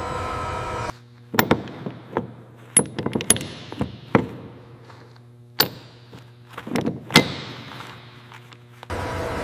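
An irregular series of about a dozen sharp knocks and thunks, some followed by a short ring, over a low steady hum.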